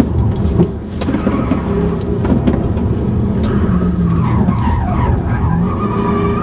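2005 Pontiac GTO's 6.0-litre V8 pulling under load, heard from inside the cabin, as the car works through a tight turn. Through the second half the tyres squeal in wavering, bending tones as they slide.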